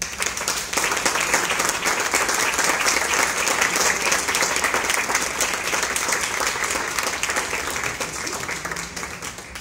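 Audience applause, starting at once and tapering off near the end.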